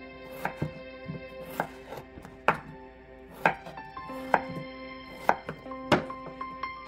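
Large kitchen knife chopping peeled raw potatoes into chunks on a wooden cutting board: sharp knocks of the blade striking the board, roughly one a second, the loudest in the second half.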